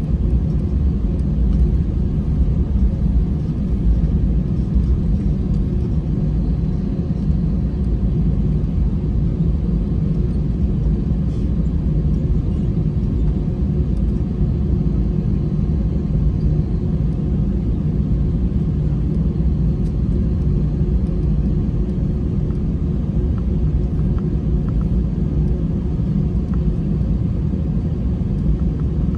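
Cabin noise of an Airbus A321 taxiing after landing: the engines and rolling airframe give a steady low rumble with a faint even hum above it.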